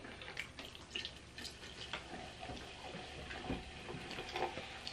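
Sprite poured from a two-liter bottle into a blender cup, a faint pouring trickle with many small crackles.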